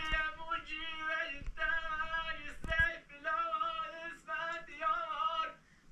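A solo voice singing a slow song in short phrases of wavering, held notes. A few dull thumps sound underneath, the loudest near three seconds in.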